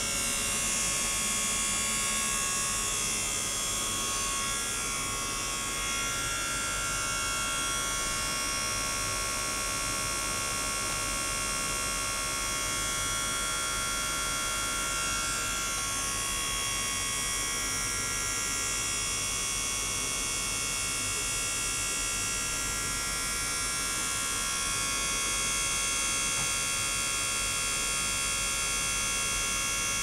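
Ultrasonic water-flow system running: a steady electric hum made of many high-pitched tones, with a faint noisy floor beneath.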